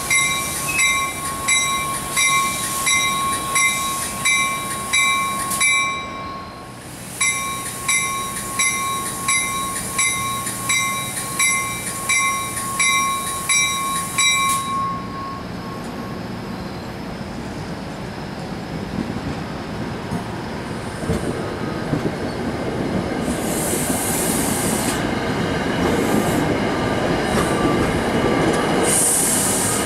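Grade-crossing warning bell ringing about twice a second, with a brief pause, then stopping about halfway through. An NJ Transit Multilevel commuter train, cab car leading, rolls in past the crossing with a growing rumble and hiss and short high-pitched squeals near the end.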